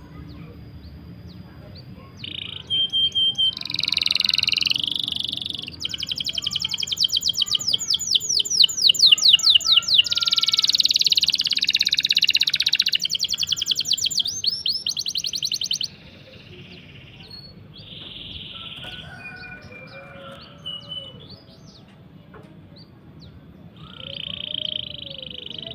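A songbird singing long rolling trills: fast runs of rapidly repeated high chirping notes, with the longest roll in the middle. After that comes a stretch of quieter scattered chirps, and a short phrase near the end.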